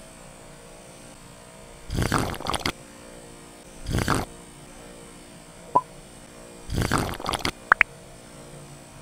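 Handling noise from hands working a small wooden toy gun and squeezing a plastic glue bottle: three short rustling bursts and a couple of brief squeaks, over a faint steady hum.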